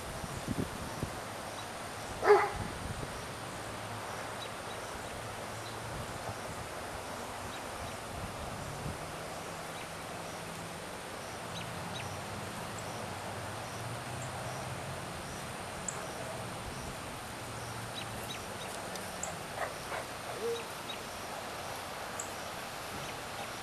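A single loud, short animal call about two seconds in, with a fainter call near the end, over a steady outdoor background.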